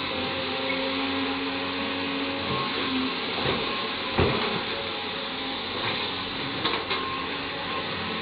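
Caterpillar 320D hydraulic excavator running under load as it digs coal: a steady engine and hydraulic drone with a few knocks from the bucket, the sharpest about four seconds in.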